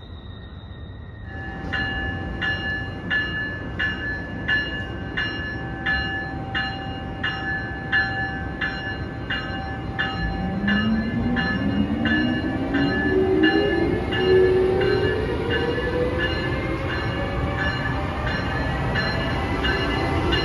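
Amtrak ACS-64 electric locomotive's bell ringing steadily, about two strokes a second. From about halfway, its motors whine, rising slowly in pitch as the locomotive picks up speed.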